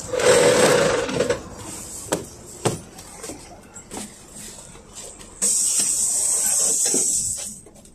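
Pneumatic passenger doors of a PAZ 32053 bus at a stop: a loud rush of air with a steady hum in the first second or so, a few sharp knocks, then a steady air hiss for about two seconds starting about five and a half seconds in.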